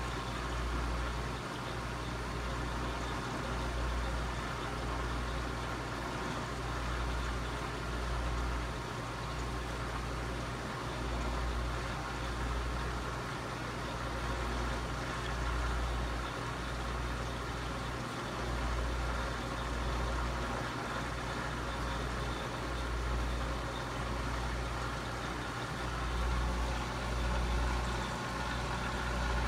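Aquarium filtration equipment running: a steady low hum that swells and dips every second or two, under an even rushing hiss of moving water and air.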